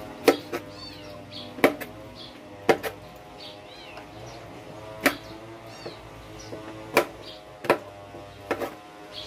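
Kitchen knife chopping okra on a plastic cutting board: about ten sharp, irregularly spaced strikes, some in quick pairs. Background music plays throughout.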